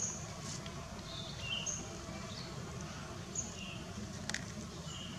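Short high animal chirps, about one a second, alternating between two pitches, over a steady low rumble, with a couple of faint clicks about four seconds in.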